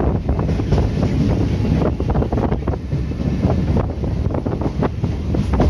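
Wind buffeting the microphone at an open train window, over the rumble of the train running along the track.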